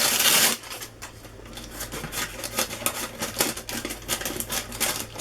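Scissors snipping through a paper cake case to cut out a rough circle: a fast, uneven run of short snips, with a louder rustle of the paper at the start.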